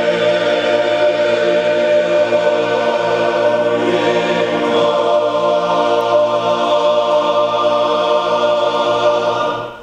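Men's chorus singing a cappella, sustaining a long chord that is cut off together just before the end.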